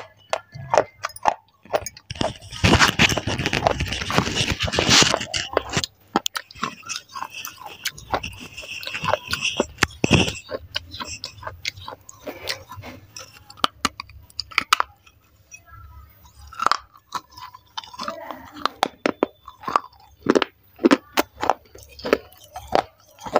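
Pieces of broken baked-clay saucer being bitten and chewed close to a lapel microphone: sharp crunching and crackling, densest from about two seconds in until about six seconds in, then coming in scattered bites and chews.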